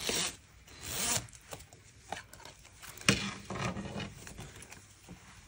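Zipper on a fleece vest being pulled open in a few short rasping strokes, the loudest about three seconds in, followed by fainter rustling of the fleece as the vest is spread open.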